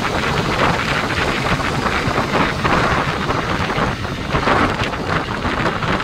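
Wind buffeting the microphone of a moving motorcycle, a loud, steady, gusty rushing.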